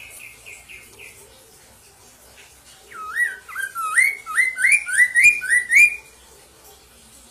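Chestnut-capped laughingthrush (poksay mandarin) singing: a loud phrase of about eight quick rising whistles, each slurring upward and the series climbing in pitch, starting about three seconds in and stopping about six seconds in. Before it comes a faint run of short falling notes that ends about a second in.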